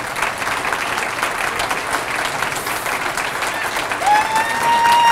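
Audience applauding, many hands clapping steadily. About four seconds in, a steady high tone comes in over the clapping, rising slightly in pitch.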